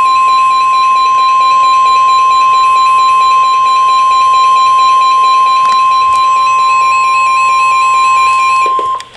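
NOAA Weather Radio warning alarm tone at 1050 Hz: a single steady high beep held for about nine seconds, then cut off abruptly. It signals that a warning message, here a severe thunderstorm warning, follows.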